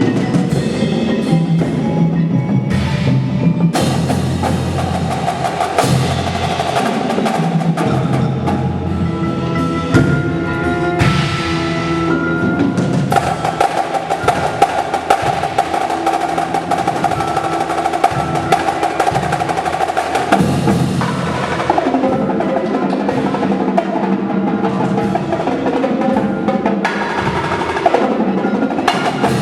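Indoor drumline performing: marching snare, tenor and bass drums playing over the front ensemble's mallet keyboards, such as marimba and bells, with sustained keyboard chords ringing through the middle stretch.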